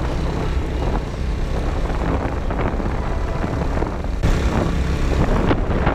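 Motorcycle engine running steadily while riding, with wind rushing over the microphone; the wind noise grows louder about four seconds in.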